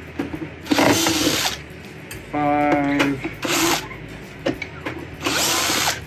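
Cordless drill-driver with a T20 Torx bit running in several short bursts of about a second each, some with a pitched motor whine, as it backs out the screws holding a vacuum cleaner's base plate.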